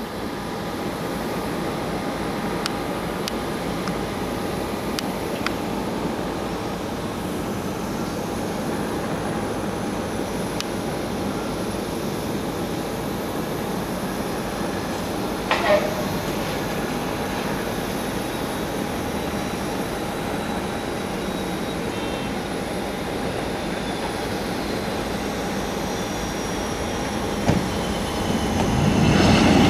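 Jet engines of an MD-80-series airliner on landing approach: a steady rumble with a high whine. It swells sharply near the end as the jet rolls out along the runway. A brief sharp knock comes about halfway through.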